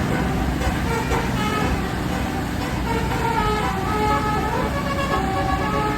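Bus telolet 'basuri' multi-tone horn playing a tune in held notes that step from pitch to pitch, over a steady low rumble.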